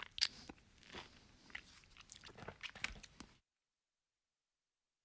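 A person chewing crunchy food, a run of crisp crunches and crackles of varying loudness, cutting off abruptly about three and a half seconds in.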